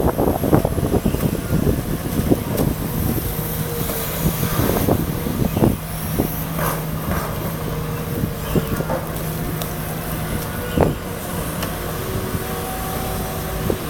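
Amphibious long-reach excavator's diesel engine running steadily with a low hum while the machine digs, with a few sharp knocks from the working arm and bucket.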